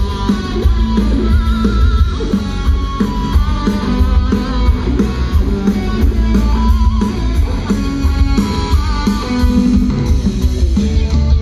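Live rock band playing an instrumental passage: electric guitar carrying a wavering melodic line over bass guitar, drums and keyboards.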